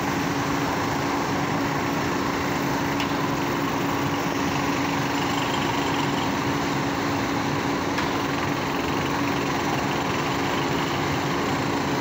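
Steady, loud roar at a blast furnace taphole as molten iron and gas stream out into the runner, with a steady machine hum underneath.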